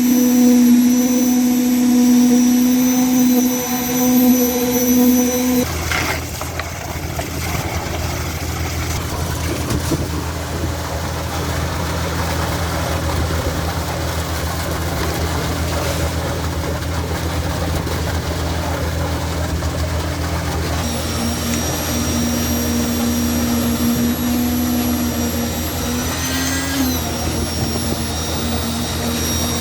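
Diesel engine and concrete pump running steadily during a concrete pour. A pitched drone cuts out abruptly about six seconds in, leaving a lower, rougher hum, and comes back about twenty seconds in, with a brief rise in pitch near the end.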